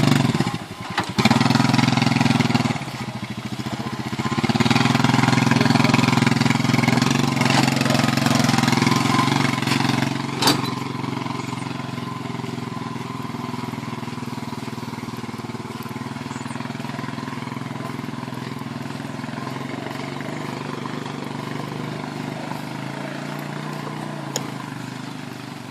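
Honda FourTrax 4x2 ATV's single-cylinder four-stroke engine running under throttle as it pulls a trailer. It dips briefly twice in the first few seconds, then runs loud for about ten seconds before settling to a steadier, quieter running sound.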